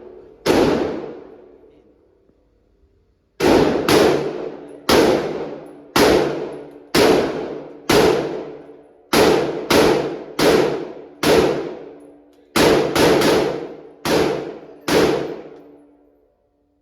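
A string of about sixteen gunshots, each with a ringing echo that dies away over about a second. After two shots there is a gap of about three seconds, then the shots come roughly one a second, with a quick double and triple near the end.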